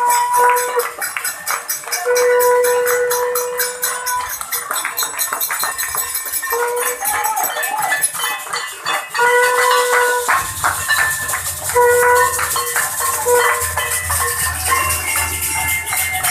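People clapping and ringing bells in a fast, continuous clatter. A steady horn-like tone sounds several times for a second or two each, and a low hum joins about ten seconds in.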